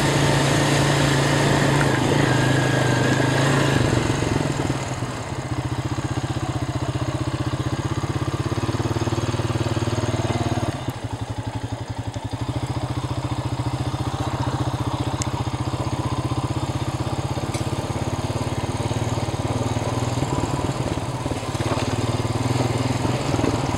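Four-wheeler ATV engine running under way. Its note eases off about five seconds in, drops again about halfway through, and picks up near the end as the throttle changes.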